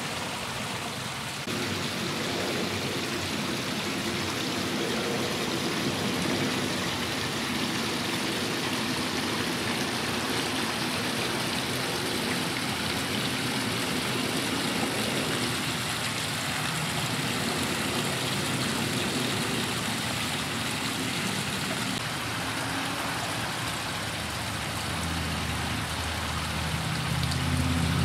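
Water from small waterfalls spilling over stone ledges into a backyard koi pond, a steady splashing trickle. A low rumble builds near the end.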